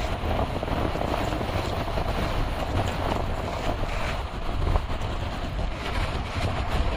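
Kia Seltos driving at highway speed: a steady low rumble of road and wind noise.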